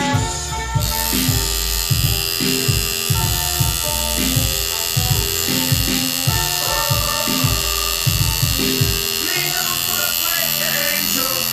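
Tattoo machine buzzing steadily as it works on skin, switching on about a second in. Background music with a bass beat plays under it and fades out near the end.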